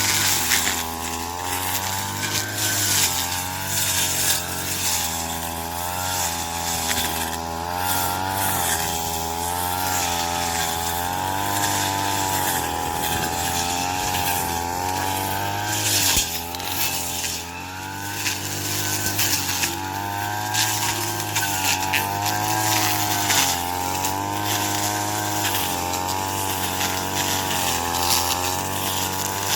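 Yamaha-engined corn-stalk cutting machine running continuously. Its engine pitch dips and recovers over and over as it takes the stalks, with a rough, crackling cutting noise over it.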